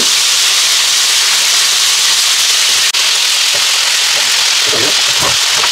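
Rabbit pieces frying in hot oil in a wide paella pan, a steady loud sizzle, while they are turned with a metal spatula.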